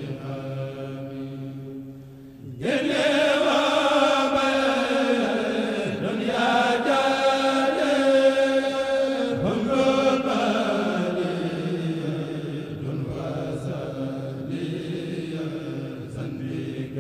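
Unaccompanied Mouride kourel chanting of a Sufi qasida: voices hold a steady low tone, then about two and a half seconds in a lead chanter comes in loudly with a long, ornamented line that slowly falls away.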